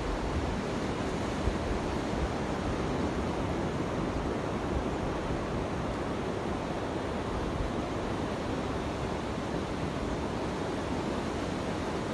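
Sea surf washing steadily, a continuous rushing with no separate breaks standing out, with wind rumbling on the microphone.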